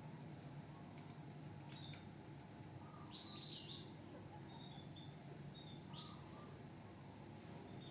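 Canary chirping: two short, brighter calls about three and six seconds in, with faint little notes between them. A few soft clicks come near the start.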